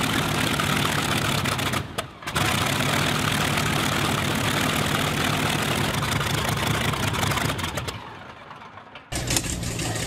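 Focke-Wulf Fw 190's uncowled radial engine running steadily at low speed on a ground run, with a brief dropout about two seconds in. It fades out near the end, and after a short lull another aircraft radial engine, a Grumman F7F Tigercat's, is heard running.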